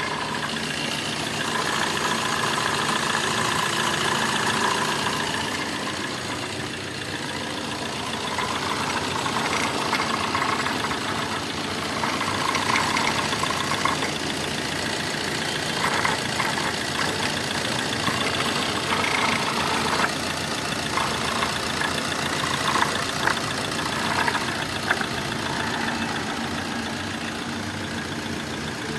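Tata Manza car running with a steady mechanical drone, with scattered short clicks and knocks through the middle of it.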